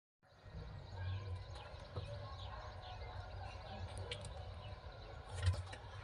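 Low outdoor rumble with faint, scattered bird chirps, and a single thump about five and a half seconds in.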